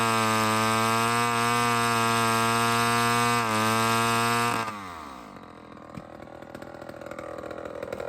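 Vintage two-stroke chainsaw engine running at high speed with a steady pitch, then shut off about four and a half seconds in, its pitch falling as it coasts to a stop.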